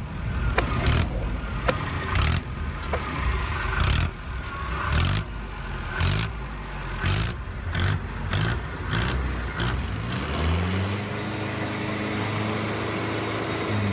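A vehicle engine running unevenly with irregular knocks and clatters, then about ten seconds in its note rises in pitch and settles into a steady hum.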